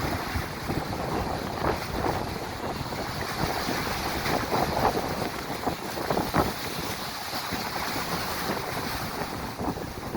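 Strong wind buffeting the microphone in irregular gusts over the churning and breaking of high waves.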